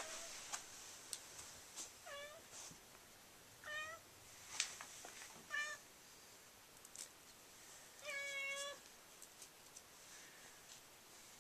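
Domestic cat meowing: three short meows about two, four and five and a half seconds in, then a longer, steadier meow about eight seconds in. Light clicks and taps come and go in between.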